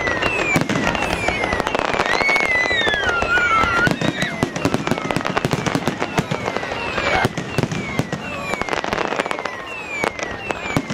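Fireworks display going off: a dense run of bangs and crackling, with short falling whistles repeating over it.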